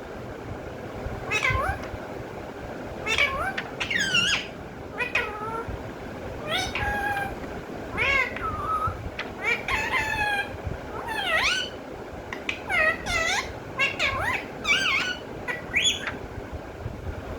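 Pet parrot calling over and over: short, bending calls that rise and fall in pitch, about one a second.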